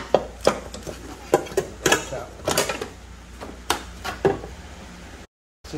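Irregular metallic clanks and clinks, roughly two a second, some ringing briefly: metal parts knocking together as a stuck part is worked loose by hand around a car's engine-mount bracket.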